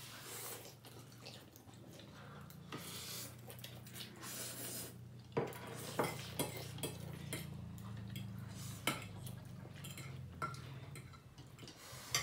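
Eating noodles: chopsticks and forks clicking and scraping against plates and a bowl at irregular moments, with noodle slurping, over a faint steady low hum.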